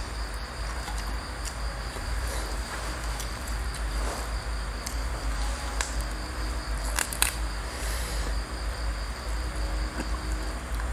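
Crickets trilling steadily, a high thin tone, over a constant low hum, with a few sharp clicks around the middle.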